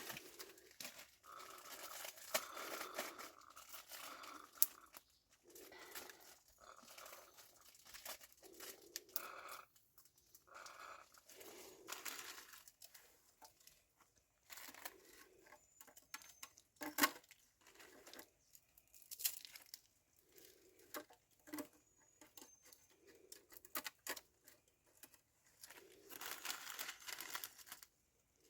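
Irregular rustling and crinkling, like material being handled, in short bursts, with a couple of sharp clicks.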